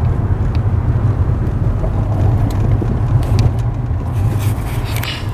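Steady low rumble of a car on the move, heard from inside the cabin: engine and road noise.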